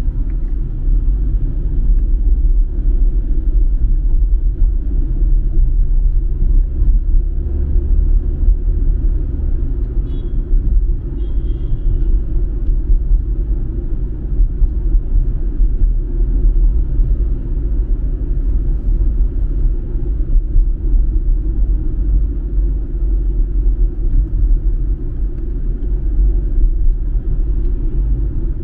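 Steady low rumble of a car driving in city traffic, heard from inside the cabin: engine and tyre road noise.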